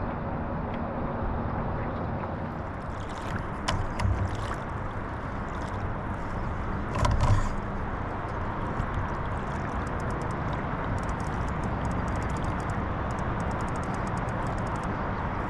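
Steady wash of water and wind around a kayak, broken by two knocks against the hull about four and seven seconds in. Near the end comes a run of fast, faint clicking as the angler cranks his fishing reel while playing a fish on a bent rod.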